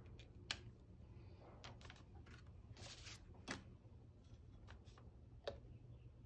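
Near-silent room with faint handling sounds on a paper-covered table: light rustles and three small taps as a painted test card, a ceramic bowl and a felt-tip pen are picked up and set down.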